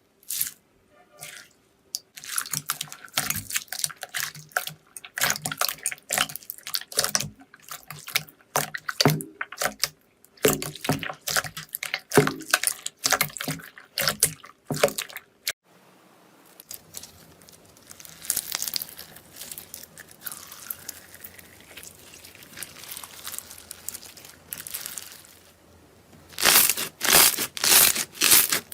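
Slime being squeezed and poked by hand, giving quick irregular bursts of sticky crackling and popping squelches. A quieter stretch follows, with softer squishing over a faint low hum, then a few loud squelches near the end.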